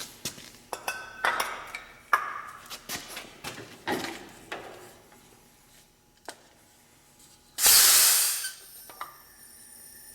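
Metal tools and fittings clinking and clicking as they are handled, then a short, loud hiss lasting about a second, a bit past halfway through.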